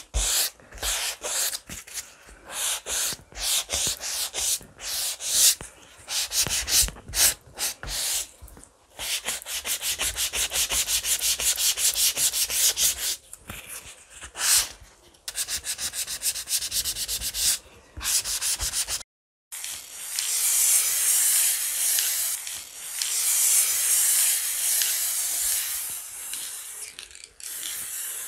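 Sanding sponge rubbed over a chalk-painted oak board in repeated back-and-forth strokes, scuffing back the paint to give it a patina. After a short break about two-thirds of the way through, an aerosol spray can hisses steadily for several seconds.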